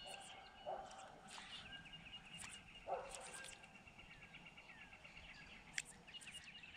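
Faint outdoor animal sounds: a steady high-pitched trilling chorus of rapidly repeated notes, with two short, lower calls about two seconds apart and a few faint clicks.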